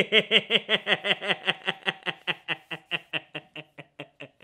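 A man laughing hard: a long run of quick 'ha' pulses, about six a second, that slows and fades toward the end.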